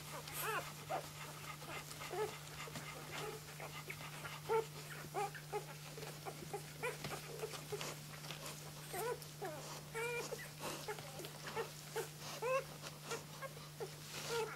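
Three-day-old flat-coated retriever puppies squeaking and whimpering as they nurse, with many short, high, wavering calls coming in quick irregular succession. A steady low hum runs underneath.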